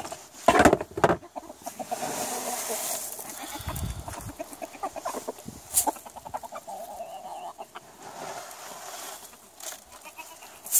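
A plastic scoop knocks and rattles in a plastic bin of chicken feed, a few loud knocks about a second in, then chickens cluck as they gather to peck at the feed.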